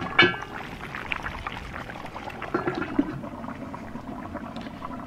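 Cast-iron cauldron lid clanks into place just after the start, then the meat and its juices bubble and crackle softly inside the covered kazan as it stews, with a few small ticks.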